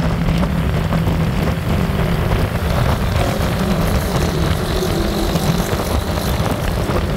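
Steady engine drone and road noise from the camera vehicle pacing a group of road cyclists, a low rumble that holds level throughout.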